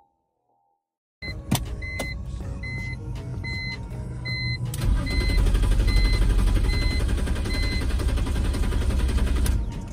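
BMW E46 330Ci's M54 inline-six being cranked by the starter for about five seconds without catching: crank, no start. Before the cranking come a couple of clicks from the ignition and a dashboard warning chime beeping about every two-thirds of a second, which keeps going into the cranking.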